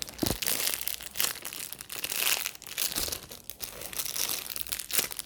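Plastic bags and wrapping crinkling and rustling as they are handled, a dense irregular crackle.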